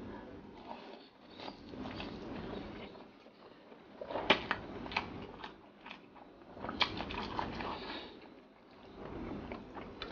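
Close-miked chewing and mouth smacking of a mouthful of rice and sardines, eaten by hand: irregular wet clicks and smacks in clusters, the sharpest one about four seconds in.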